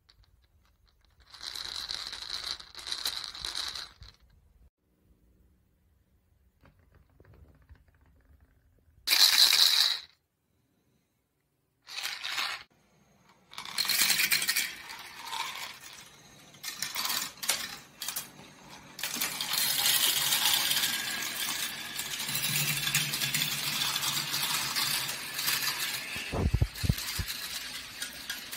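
Balls rolling and clattering down a plastic marble run track: short rattling runs with silent gaps at first, then a near-continuous clatter through the last third, with a brief low thump near the end.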